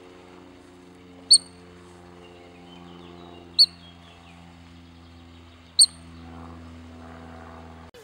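Three short, sharp, high-pitched bird-like chirps, evenly spaced about two seconds apart, over a faint steady low hum.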